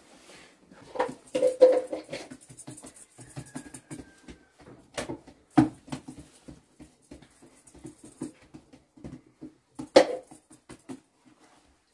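Irregular pats, knocks and thuds of flatbread dough being handled on a cushioned bread pad and carried to a tandoor oven. There is a cluster of knocks about a second in and sharp single thuds around five and ten seconds in.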